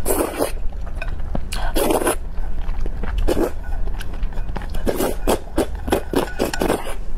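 Close-miked eating: chewing and biting, with many short sharp mouth clicks and a few louder crunchy bursts.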